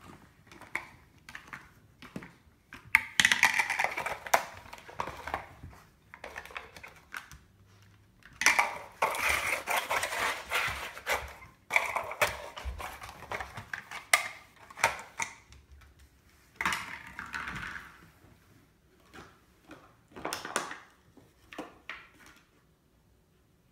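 A beagle chewing and handling a crinkly plastic object: spells of crackling and clattering plastic, several in a row with short pauses between.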